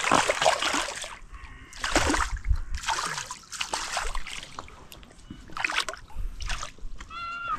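Zander hooked in the flank thrashing at the water's surface as it is brought in, in several separate bursts of splashing. A brief high-pitched call sounds near the end.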